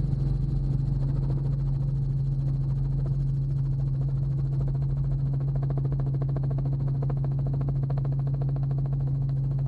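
Helicopter in flight, heard from inside the open-door cabin: a steady low engine and rotor drone with a fast rhythmic rotor beat that grows clearer about halfway through.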